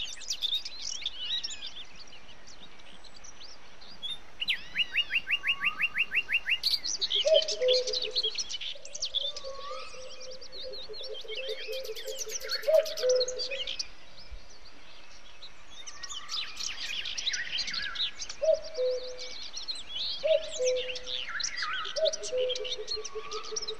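Many birds singing and chirping together, with a rapid even trill of about eight notes a second around five seconds in and a low two-note falling call repeated several times.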